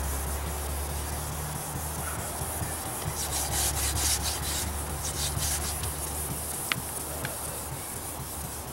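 Hand-sanding the black paint on a 1957 Chevrolet's body panel with a sanding pad: quick back-and-forth scratchy rubbing strokes, busiest a few seconds in, scuffing the old paint before repainting. A steady low hum runs underneath, and two sharp ticks come near the end.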